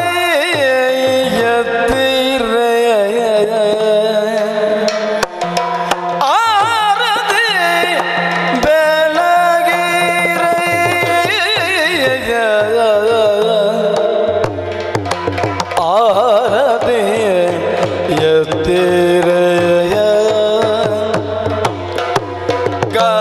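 Yakshagana music: a Bhagavata singer's voice in an ornamented, gliding melody over a steady low drone, with drums beating.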